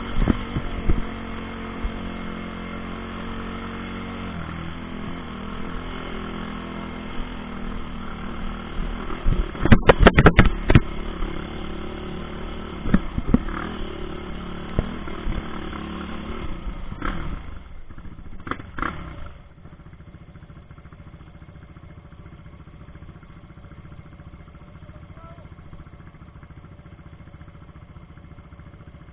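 ATV (quad bike) engine running under way on a rough dirt trail, with a cluster of loud clattering knocks from the machine jolting over bumps about ten seconds in. About two-thirds of the way through, the engine note drops and runs on quieter and steady.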